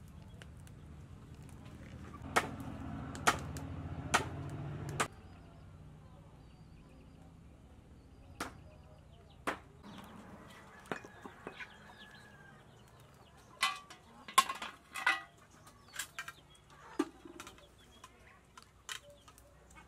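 Chickens clucking, with scattered sharp knocks of a utensil against the cooking pot. A low rumble fills the first five seconds and stops abruptly.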